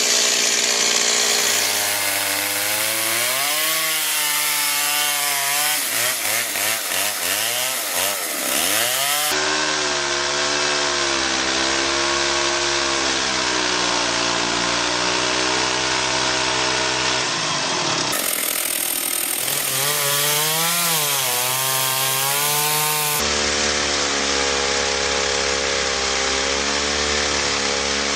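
Chainsaw running and cutting wood, its engine pitch repeatedly dipping under load and picking back up, with the sound changing abruptly a few times.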